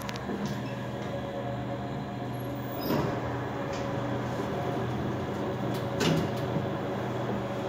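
KONE elevator arriving: a steady hum from the car, a thump about three seconds in, then the car's sliding doors opening, with a clunk about six seconds in.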